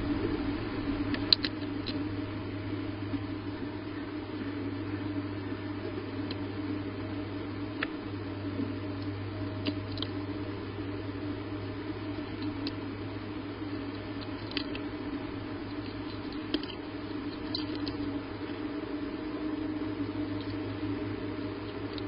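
Steady low hum and hiss from a nest camera's microphone, with scattered faint clicks now and then.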